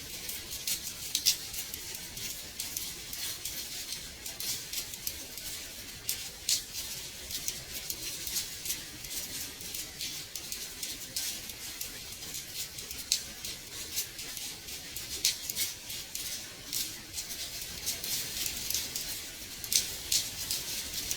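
Gentle rain tapping on a window: a steady hiss with many small, irregular ticks of drops against the glass.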